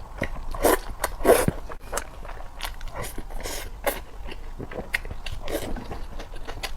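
A person eating close to the microphone: chewing and biting with many short sharp clicks and crunches, loudest about a second in.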